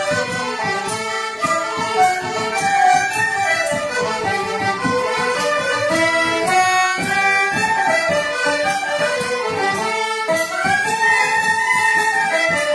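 An ensemble of young players performing an Irish traditional dance tune together. Tin whistles, flute, accordion, concertina and tenor banjo play the melody in unison over a steady bodhrán beat, without a break.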